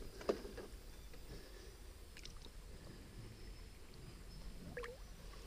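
Faint water sloshing and small splashes from a hand and arm moving through shallow stream water along the bank, with one sharper brief splash about a third of a second in.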